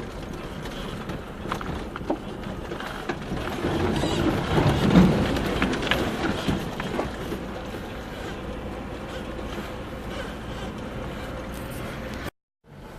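Lada Niva 21214 on the move over a rough, wet track: steady engine and road noise that swells louder for a couple of seconds in the middle. The sound cuts out briefly near the end.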